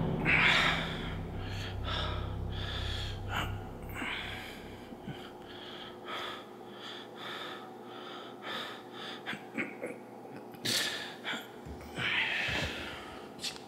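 A man breathing hard in pain: a run of gasping breaths that grow fainter, then two louder gasps near the end. A low drone sounds under the first few seconds.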